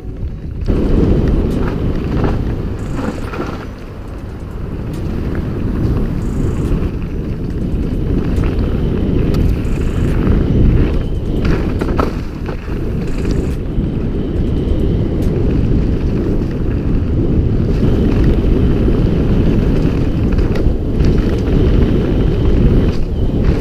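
Wind buffeting a helmet-mounted GoPro's microphone and the tyres of a Radon Jab mountain bike rumbling over a dirt singletrack, with scattered knocks and rattles from the bike on the rough trail.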